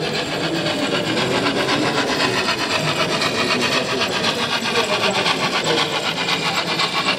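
Model freight train hauled by a steam locomotive running along the layout track: a steady rasping running noise with a fast, even ticking all through.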